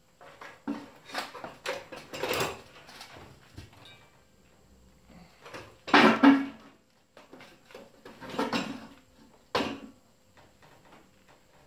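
Irregular metal clunks, knocks and scrapes of a Briggs and Stratton horizontal-shaft engine being worked loose and hoisted off a tiller frame, the loudest clatter about six seconds in.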